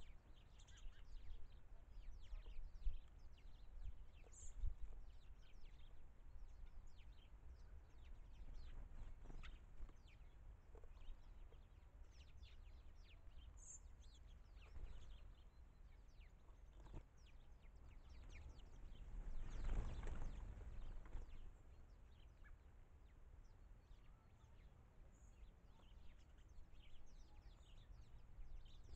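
Faint outdoor birdsong: short chirps and calls from small birds scattered throughout, over a low steady rumble, with a louder rush of noise about two-thirds of the way through.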